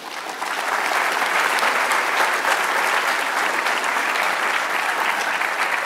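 Audience applauding: the clapping swells over the first second and then holds steady.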